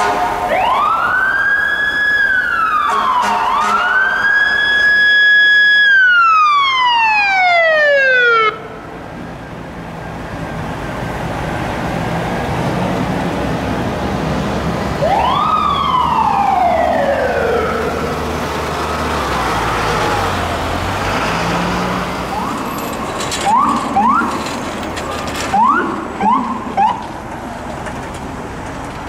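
Emergency vehicle sirens over traffic noise. First a siren rises and holds, dips and rises again, then slides down and is cut off about eight seconds in. Later comes a single rising-and-falling siren sweep, and near the end several short rising chirps.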